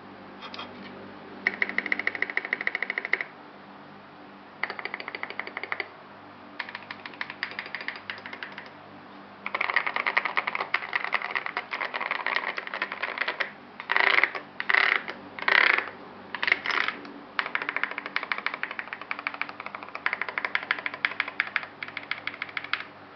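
Typing on a Melody 96 mechanical keyboard with lubed Salmon switches, SA-profile keycaps and a tape and PE-foam mod: fast runs of keystrokes lasting one to four seconds with short pauses between them. About two-thirds of the way through come four louder, longer bursts close together, and a faint steady hum runs underneath.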